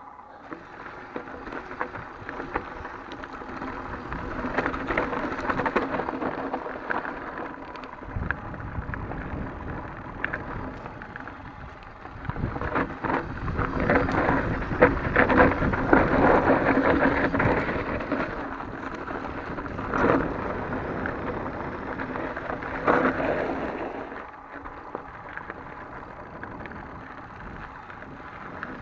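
Ride noise of a 2017 Santa Cruz Hightower mountain bike on rocky dirt singletrack: tyres crunching over gravel and stones, with the bike rattling over the bumps. It gets louder for several seconds in the middle, with a couple of sharp knocks later.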